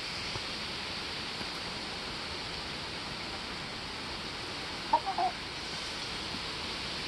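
A chicken gives a brief cluck about five seconds in, over a steady background hiss.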